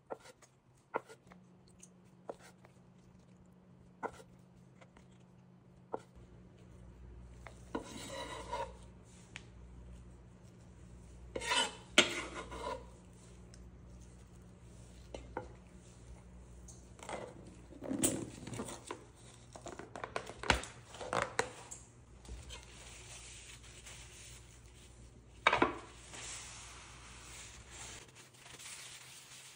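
Chef's knife tapping on a wooden cutting board while slicing mozzarella pearls, single sharp taps every second or two. Then scraping and knocking as the cut pieces are pushed into a ceramic bowl, and near the end a paper towel rubbing across the board.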